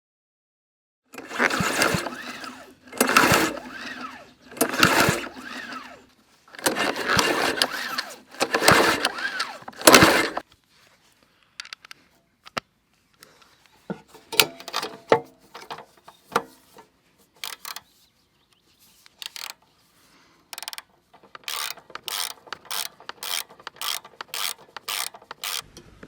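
Lawn mower's recoil starter cord pulled about six times in quick succession, each pull a loud rasping whirr that dies away without the engine catching: the mower will not start. After that come scattered sharp mechanical clicks, then a quick run of clicks at about three a second near the end.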